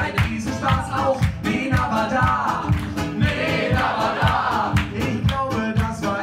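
Two men singing to two acoustic guitars strummed in a fast, steady rhythm.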